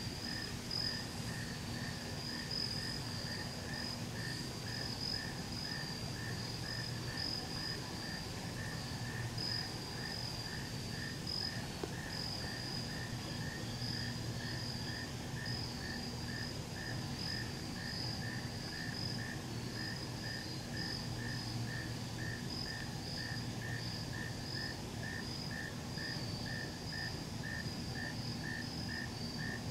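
Evening chorus of crickets and other insects: a steady high pulsing trill, with a lower chirp repeating about twice a second. A faint low hum comes and goes underneath.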